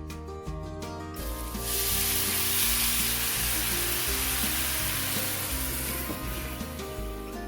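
Turkey patties frying in a hot pan: a loud burst of sizzling starts about a second in and eases off near the end. Background music plays throughout.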